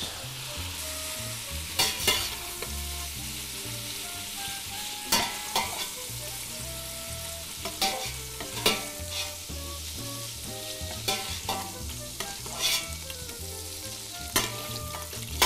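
Cubes of pork sizzling in hot butter and oil in a stainless steel pot. A metal skimmer scrapes and knocks against the pot every second or two as the browned meat is lifted out.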